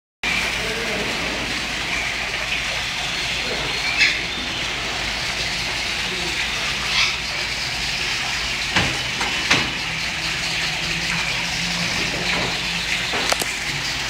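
Water from an artificial rock waterfall falling steadily and splashing into its pool, a constant rushing hiss, with a few short sharp clicks.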